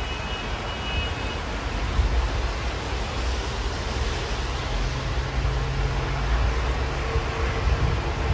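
Steady noise of road traffic on a wet, stormy night, with a deep low rumble underneath that swells and eases. A low engine drone holds for a few seconds in the second half.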